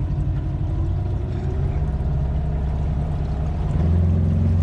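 Outboard motor driving an aluminium tinny across the water, a steady low drone that grows louder about four seconds in.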